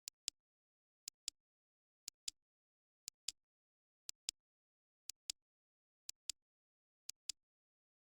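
Clock ticking: a pair of sharp clicks once a second, the second click about a fifth of a second after the first, eight pairs in all.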